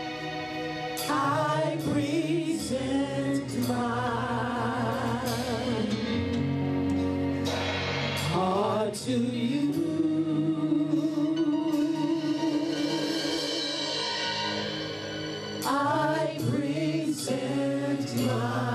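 Gospel praise team singing with a live band: a lead voice and backing vocalists holding sung lines over keyboard chords and drums, with occasional cymbal hits.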